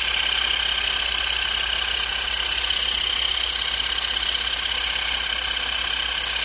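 Steady hissing as the burning sawdust-stove fire is soaked with water to put it out.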